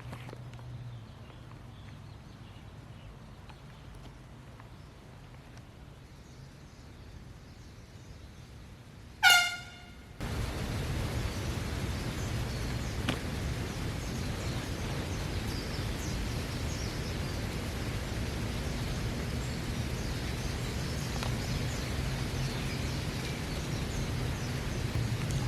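A single short blast from a handheld air horn about nine seconds in, loud and shrill over a faint, quiet background. About a second later the background changes abruptly to a steady hiss.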